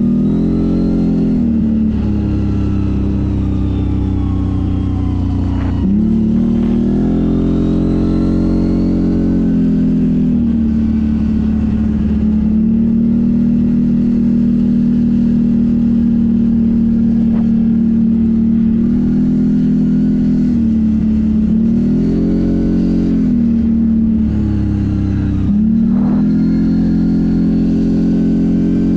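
CFMoto 1000 ATV's V-twin engine running under way, holding a steady note most of the time. Its pitch rises and falls with the throttle about a second in, around six seconds, and twice near the end.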